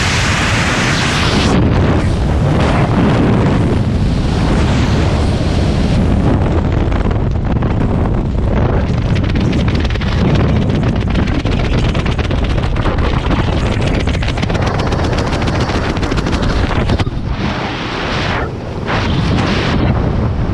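Loud wind rushing over a helmet camera's microphone in freefall. About a second and a half in the wind loses much of its hiss as the parachute opens, and under the open canopy it goes on as a rumble with rapid fluttering of canopy fabric.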